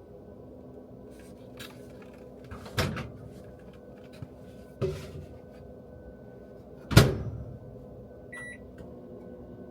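Three knocks in a small room, the last the loudest, over a steady electrical hum, then a short high beep near the end.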